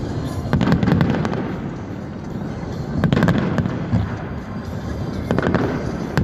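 Fireworks display: shells bursting overhead in clusters of sharp bangs and crackles, about a second in, around three seconds and again past five seconds, each followed by a deep rolling echo.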